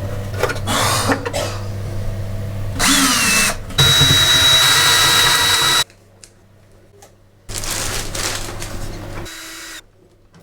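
Handheld power drill running in bursts, the main run of about two seconds with a steady high whine stopping abruptly, then a second shorter burst.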